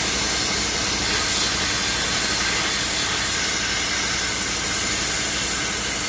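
Compressed air hissing steadily out of the opened drain valve on a truck's air brake tank, blowing out water that has collected in the tank.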